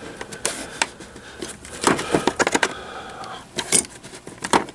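Metal hand tools, sockets and ratchets, clinking and clacking against each other as they are handled in a toolbox drawer: a string of irregular sharp clicks.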